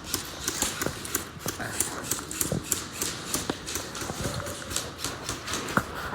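Footsteps close to the microphone, a quick, regular stride of about three steps a second.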